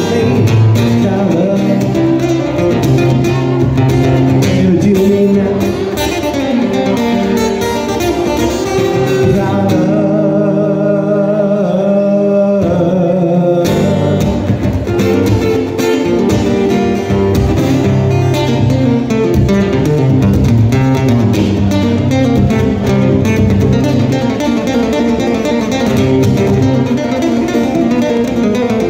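Live acoustic guitar played through a PA in a steady rhythmic pattern. About ten seconds in it thins to a few held notes for three or four seconds, then picks back up.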